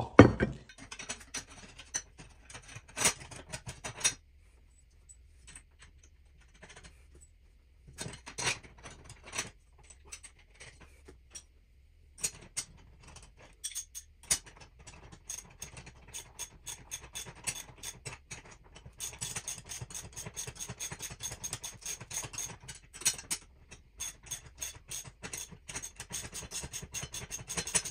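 Socket ratchet wrench clicking in fast runs, with a few metal clinks and short pauses, while a 17 mm bolt holding a hoist pulley is tightened.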